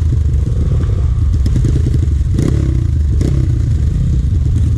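Trail motorcycle engine running steadily, with two short clattering knocks about halfway through.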